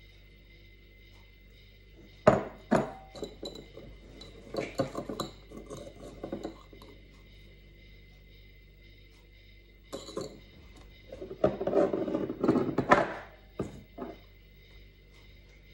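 Clinks, knocks and rattling of a stainless steel flour sifter as flour is tipped in from a bowl and dry ingredients are added with a spoon, in two bouts: the first opens with a sharp knock about two seconds in, the second is a denser clatter about ten seconds in.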